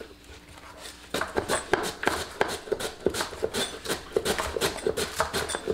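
Kitchen knife chopping green onions on a wooden cutting board: a run of quick, irregular taps that starts about a second in.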